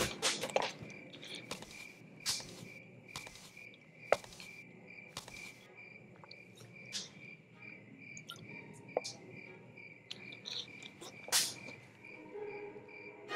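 Cricket chirping steadily, about three high chirps a second, with scattered faint clicks and rustles and one louder rustle about eleven seconds in.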